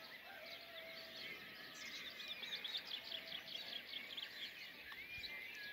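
Dawn chorus of songbirds: many overlapping high chirps and trills, faint, with a fast run of repeated notes in the middle.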